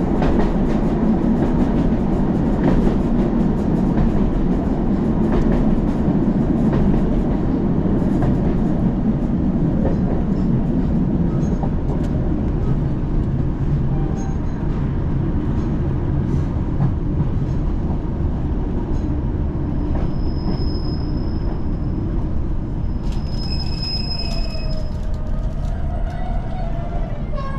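Steady rumble of a Class 156 diesel multiple unit heard from inside the carriage, wheels running on the rails as the train slows into a station. High thin squeals come about 20 seconds in and again a few seconds later as it brakes to a stop at the platform.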